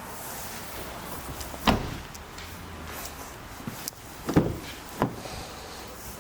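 Car doors being worked: three short clunks, the loudest a little under two seconds in and two more close together near the end.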